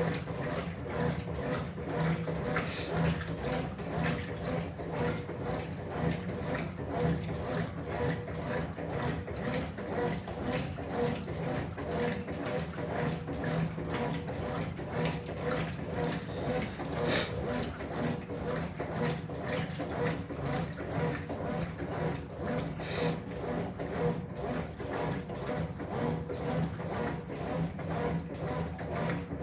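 Top-load washing machine agitating in its wash cycle: a steady motor hum with an even, rapid pulse from the agitation. Two brief sharp ticks stand out, one just past the middle and one later.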